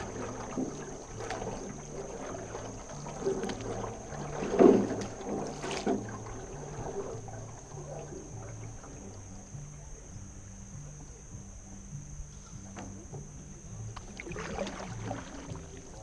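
Canoe paddle strokes splashing in the water, the loudest about four and a half seconds in and more near the end, over music with a low, stepping bass line.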